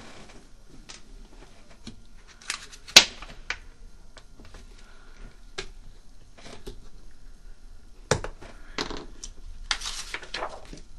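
Hard plastic clamshell case of a circular saw blade being unclipped and opened by hand: a few sharp plastic clicks and snaps, the loudest about three seconds in and more about eight seconds in, then a short rustle of plastic handling near the end as the blade comes out.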